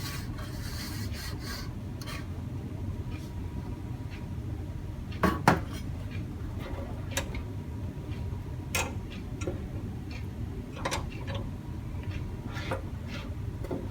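Scattered light metallic clinks and knocks from a steel toolbox and its tray being handled, the strongest about five seconds in, over steady low background noise.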